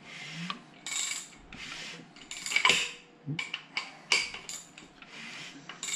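The crankshaft of a freshly rebuilt 5.7 L Hemi V8 long block is being turned over by hand in repeated strokes about once a second. Each stroke brings a mechanical scraping as the new piston rings drag in the freshly machined cylinders, the normal sound before the rings wear in.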